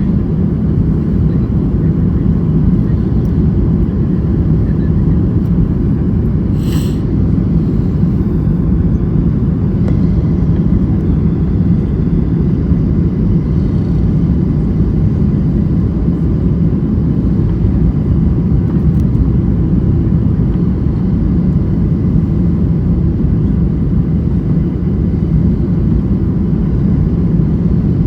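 Steady low rumble of an airliner's engines and airflow heard from inside the cabin, with one brief high clink about seven seconds in.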